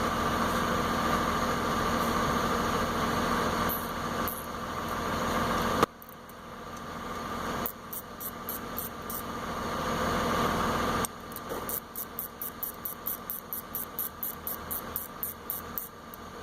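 A steady mechanical hum that cuts off suddenly about six seconds in, then a hand ratchet clicking in quick, even runs as it turns bolts on a rear brake caliper.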